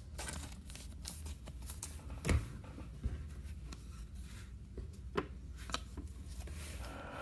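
Baseball trading cards and a clear plastic card sleeve being handled: faint rustles and light clicks as cards are slid and flicked through in the hand, with a duller knock a little over two seconds in, over a faint low hum.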